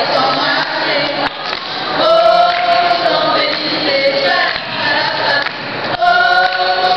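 A small mixed group of voices, three women and a man, singing together in harmony, with some long held notes.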